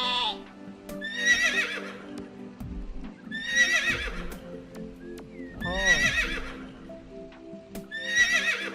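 Horse whinnying four times, about every two and a half seconds, each a short wavering neigh, over background music.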